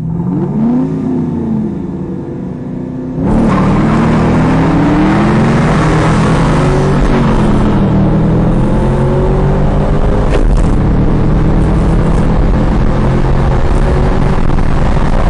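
2010 Chevrolet Camaro engine heard from inside the car, revving in rising and falling sweeps as it accelerates and changes gear. About three seconds in, a loud steady rush of wind and road noise comes in and covers much of the engine.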